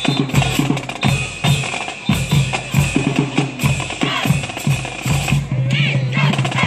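Marching band drumline playing a fast rhythm of bass and snare drum hits.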